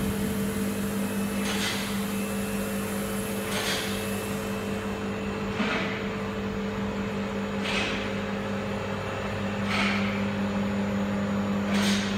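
DPF flash cleaning machine running with a steady electric hum, with a short hissing spray of water inside its cabinet about every two seconds.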